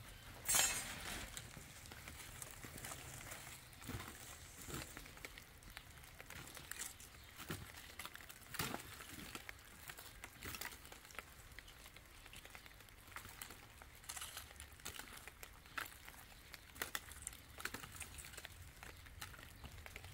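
Quiet, irregular rustling and light knocks, with a louder rustle about half a second in.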